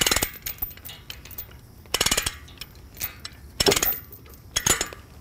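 Chain binder being cranked on a steel chain stretched diagonally across a steel frame: four short bursts of metallic clicking and chain clinking as the chain is tightened to pull the frame into square.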